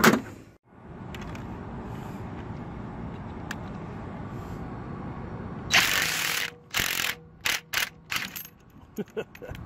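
Ratchet wrench clicking as it turns the forcing screw of a two-jaw gear puller, pulling a worn bearing off the rotor shaft of a small Baldor electric motor. One longer run of clicks comes just past halfway, followed by several short strokes. A steady background rush fills the first half.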